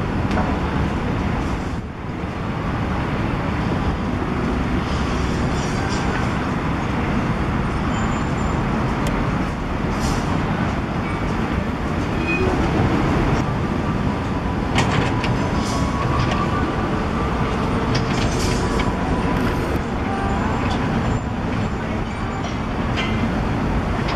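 Diesel engines of a Komatsu PC120 hydraulic excavator and a concrete mixer truck running steadily at a worksite, with a few short knocks.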